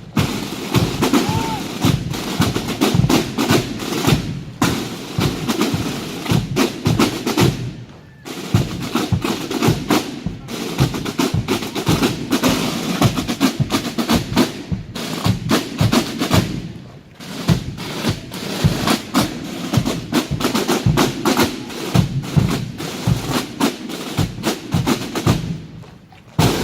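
Military snare drums of a marching band's corps of drums playing a fast drum display, with rolls and rapid sticking broken by several brief pauses.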